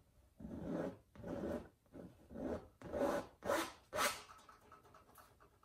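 Palette knife scraping and dragging across wet oil paint on a primed canvas in a series of short strokes, about two a second, as it cuts in the ridge lines of mountains. The strokes stop about four and a half seconds in.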